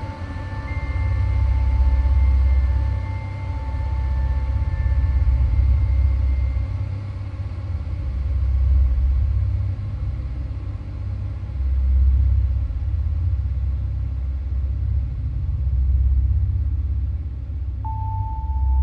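Ambient background music: a deep rumbling drone that swells and fades every few seconds, under faint held high tones. A single chiming tone comes in near the end.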